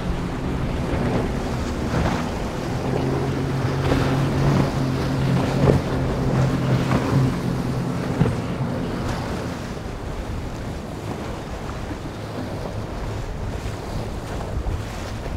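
Motorboat engines running at speed, a steady hum over the rush of hull and spray through choppy water, with wind buffeting the microphone. About halfway through the engine note weakens and drops lower.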